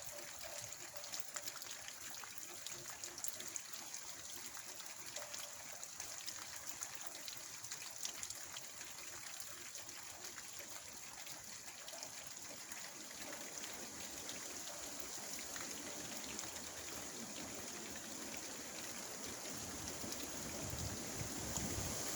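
Steady rain with many small drips ticking and water trickling. A gust of wind swells near the end, adding a low rumble.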